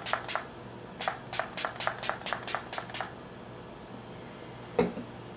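Gerard Cosmetics Slay All Day setting spray misted onto the face in rapid pump spritzes, about four a second, stopping about three seconds in. Near the end there is a single loud knock.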